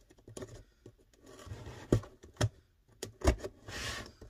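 Cardboard shipping box being handled and opened by hand: a few sharp knocks and clicks, then a brief scraping rustle of cardboard near the end.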